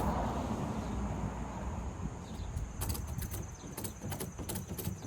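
Ratchet strap being cranked tight, a quick run of sharp ratchet clicks starting a little under three seconds in.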